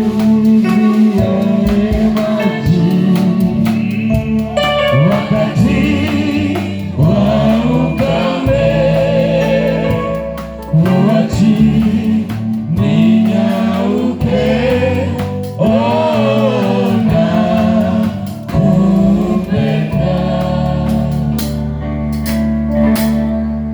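Gospel worship music: voices singing with vibrato over sustained keyboard chords and a steady bass, fading out near the end.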